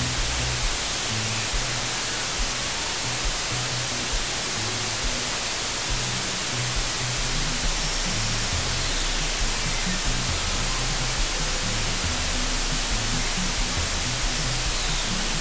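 Background music with low bass notes, under a steady, loud hiss.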